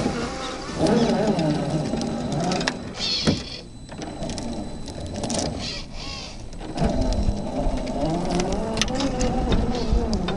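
1/10-scale RC4WD Gelande II Defender 90 crawler's electric motor and geared drivetrain whining, the pitch rising and falling with the throttle as it crawls over loose sandy dirt. The whine fades briefly about four seconds in, then picks up again.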